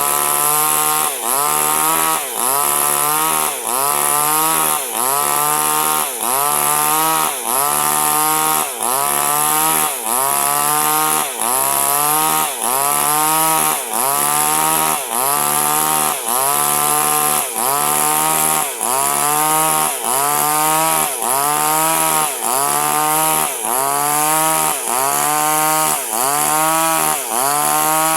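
Chainsaw ripping durian wood, its engine running at high speed with the pitch dipping and recovering about once a second as the chain is rocked into the cut under load, over a steady high hiss of the chain cutting.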